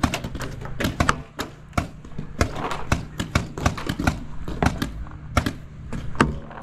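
Paintball markers firing during a game: a rapid, irregular series of sharp pops and smacks.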